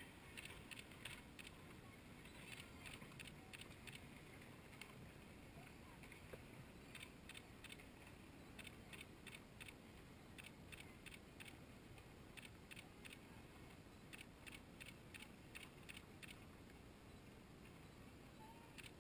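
Near silence: faint outdoor room tone with soft clusters of quick ticks, a few a second, that come and go every couple of seconds.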